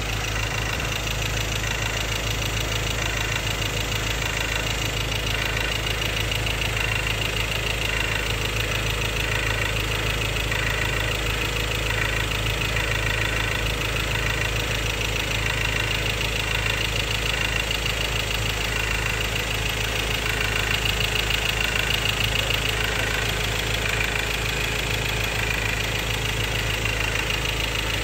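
2016 Ford Ranger's 2.2 Duratorq four-cylinder turbodiesel running at a steady idle with a constant rattle. The owner takes the rattle for fuel knock from clogging fuel injectors.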